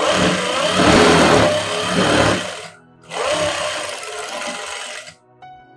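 Juki industrial sewing machine running in two bursts of stitching as a blouse sleeve seam is sewn, the first about two and a half seconds long, then a brief stop about three seconds in and a second run of about two seconds.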